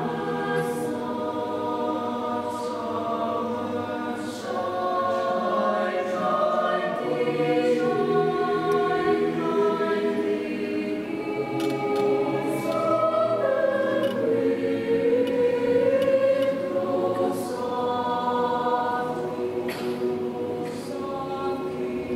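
Mixed choir of women's and men's voices singing with long, held notes, growing louder towards the middle and easing off near the end.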